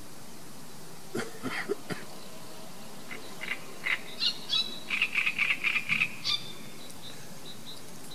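A bird calling in a quick run of high chirps and short trills through the middle, with a few brief high notes near the end. A few soft knocks about a second in from fishing gear being handled.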